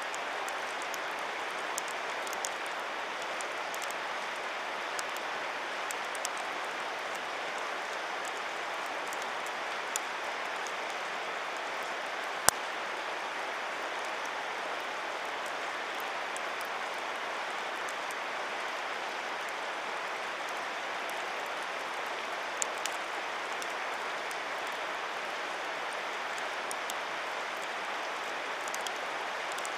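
Wood campfire crackling, with scattered sharp pops over a steady hiss; the loudest pop comes about twelve seconds in.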